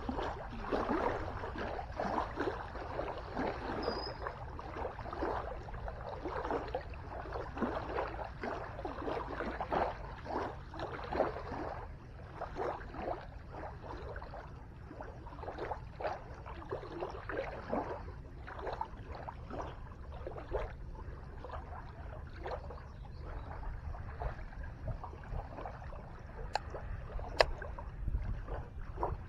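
Small waves lapping and splashing against the lake shore, an irregular run of soft splashes over a low steady rumble, with one sharp click near the end.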